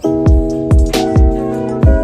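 Background music with a steady beat: sustained chords over a deep kick drum about twice a second, with light clicking percussion.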